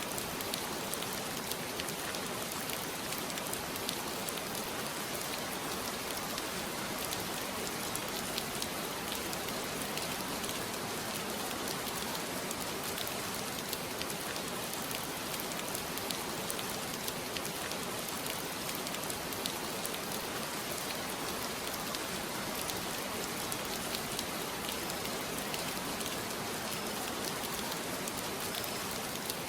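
Steady rain falling, a continuous hiss dotted with small drop impacts.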